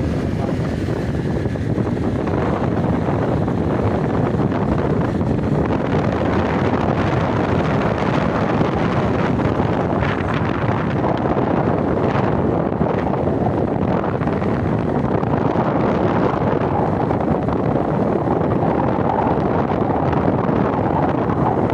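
Steady wind buffeting the microphone over the continuous running of a boat's motor.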